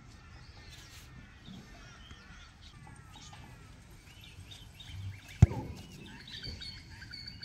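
A single sharp thud of a boot kicking an Australian rules football about five seconds in. Birds chirp and call faintly throughout.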